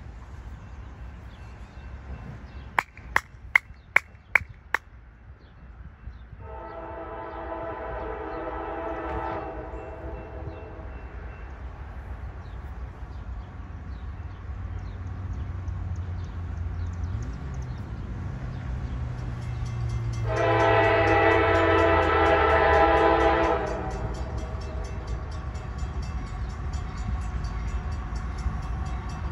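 Horn of an approaching CSX diesel locomotive sounding two long blasts about a dozen seconds apart, the second louder, over the low rumble of the locomotive growing as it nears. Six sharp clicks in quick succession sound a few seconds in.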